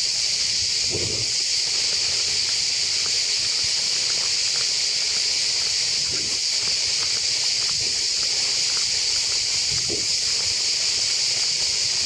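Cicadas singing in chorus: a steady, high-pitched shrill drone that does not let up. Faint scuffing footsteps on a dirt path sound underneath.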